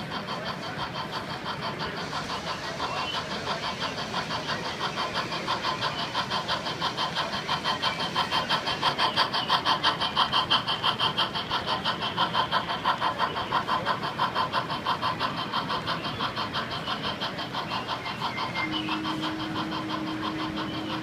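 Large-scale model steam locomotive chuffing at a fast, even beat as it pulls a freight train past, loudest about halfway through. A steady low tone joins near the end.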